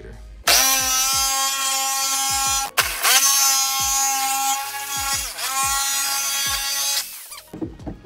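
Chicago Electric corded jigsaw cutting through the plastic lid of an ice cooler: a loud, high motor whine that starts about half a second in and cuts out briefly just before three seconds. The pitch dips and recovers once around five seconds as the blade takes load, and it stops about a second before the end.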